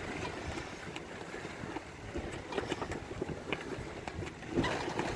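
Wind buffeting the microphone aboard a sailboat under way, with a few short rustles and knocks in the second half.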